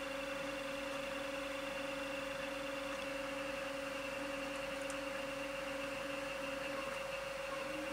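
Steady electrical hum: a low, even buzz with a faint higher whine above it, unchanging throughout.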